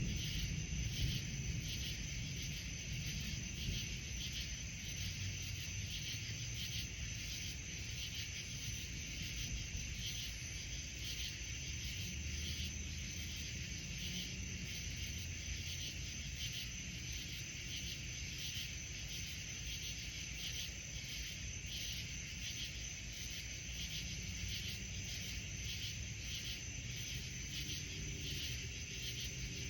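A steady chorus of crickets chirping in even, rapid pulses at night, with a low rumble underneath.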